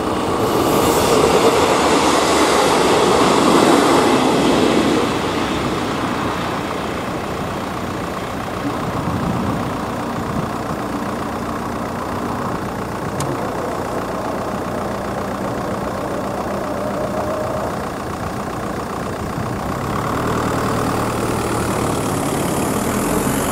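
A train running over a level crossing, loudest in the first few seconds, then a steady engine noise.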